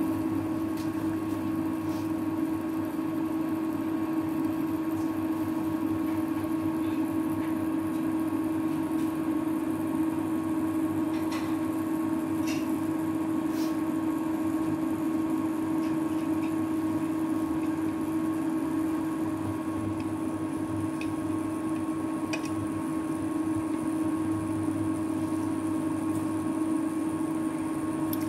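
Electric glass-top cooker running under a pot of lentils and water, its cooling fan and electrical hum steady throughout. There are a few faint ticks in the middle.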